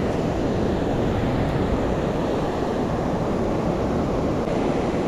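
Steady rush of river water pouring over a weir and through shallow riffles, an even noise with no breaks.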